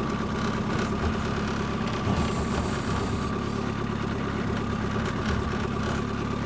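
Skid steer engine running steadily as the machine creeps forward carrying a loaded tool chest.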